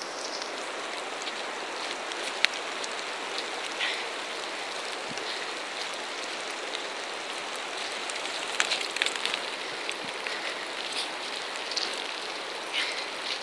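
Steady hiss of rain falling, with scattered short taps and rustles of footsteps in wet fallen leaves; the sharpest tap comes about two and a half seconds in.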